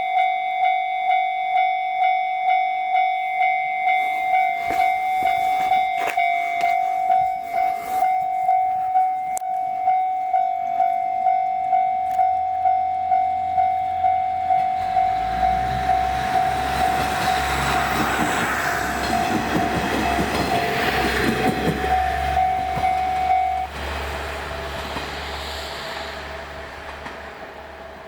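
Japanese railroad crossing warning bell ringing in a steady rhythm, a little under two strikes a second. About halfway through, a JR Iiyama Line diesel railcar passes with a low rumble of wheels on the rails. The bell stops shortly before the end while the train sound fades away.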